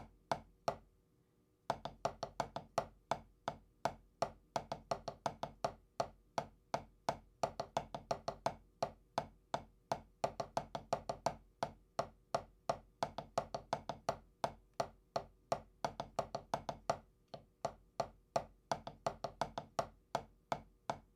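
Drumsticks playing fast, even rudiment strokes in an unbroken stream with a brief stop about a second in, then picking up again.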